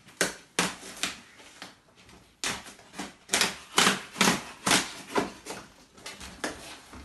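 A large cardboard guitar shipping box being opened by hand: a string of sharp rips and scrapes of packing tape and cardboard. Three come spaced out in the first second, then a quicker run of them through the middle.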